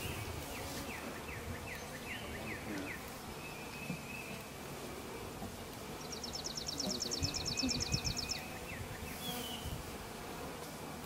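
Honey bees buzzing in flight around a freshly installed hive. A songbird chirps in a quick falling series during the first three seconds and gives a rapid trill of about seven notes a second midway.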